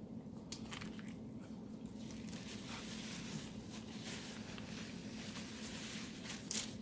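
Close-up chewing and mouth sounds of someone eating, a run of soft wet smacks and clicks with a sharper click near the end.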